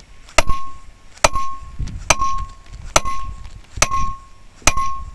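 Six evenly spaced metal blows on an iron wedge set into a log to split firewood, each strike ringing with a clear tone that fades before the next, a little under one a second.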